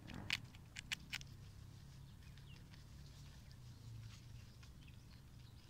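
Guinea pig chewing fennel fronds: a few crisp crunches in the first second or so, then fainter nibbling, over a low steady background hum.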